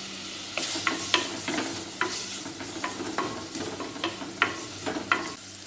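Sliced onions and curry leaves frying in coconut oil in a clay pot, sizzling steadily, while a wooden spoon stirs them. From about half a second in, the spoon makes irregular scrapes and knocks against the clay, several a second.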